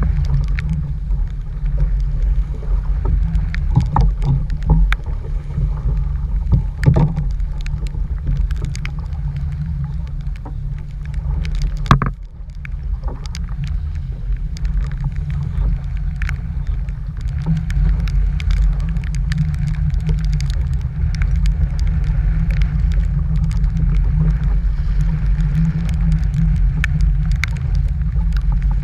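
Strong wind buffeting the microphone in a deep, steady rumble, with scattered sharp taps throughout; the loudest tap comes about twelve seconds in.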